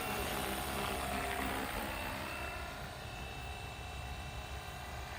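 Flywing Bell 206 RC helicopter in flight: its electric motor and rotors whine steadily, with a low wind rumble on the microphone.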